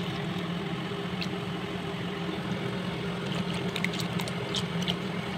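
A steady low mechanical hum with a few faint, light ticks over it.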